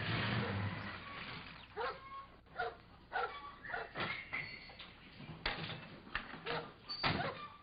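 A dog barking repeatedly in short, uneven barks, after a brief rushing noise at the start.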